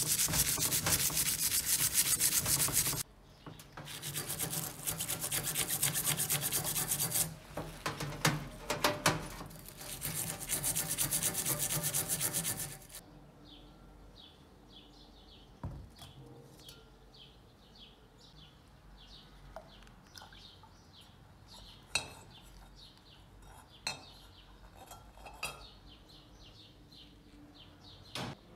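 Wire brush scrubbing the wet bronze mortar in long hard strokes, in three stretches broken by short pauses, for about the first thirteen seconds. After that birds chirp faintly, with a few light knocks, and a clink near the end as the mortar is set into a glass bowl of water.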